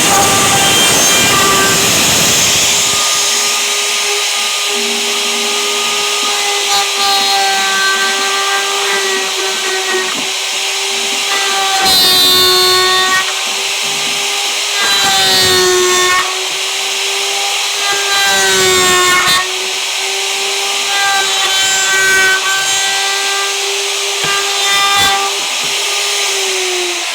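Electric woodworking power tool running with a steady high whine, cutting into wood several times. On each cut the rough cutting noise rises and the motor's pitch sags under the load.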